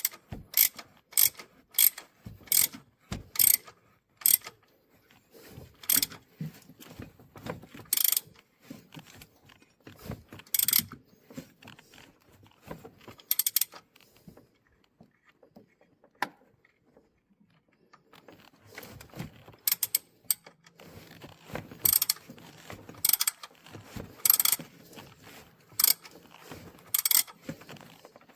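Hand ratchet clicking in short strokes, a burst of clicks about every half second at first, then more irregularly, with a pause of a few seconds midway.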